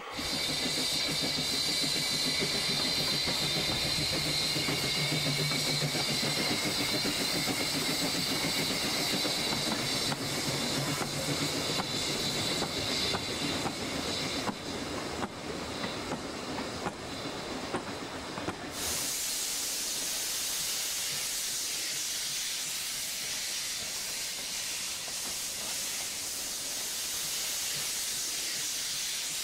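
Narrow-gauge steam train running past, its carriages clattering over the rails, with a steady high tone over the noise. After a sudden change about two-thirds of the way through, only an even hiss remains.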